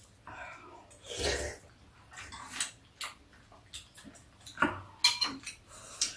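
Metal spoons scraping and clinking against ceramic bowls of chicken soup during eating, with a few sharp clinks in the second half.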